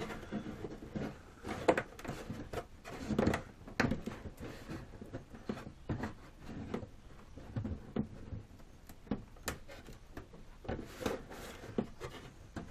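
Irregular light knocks, clicks and rustles from handling a wooden, film-covered RC model plane fuselage and canopy on a workbench, with no steady rhythm.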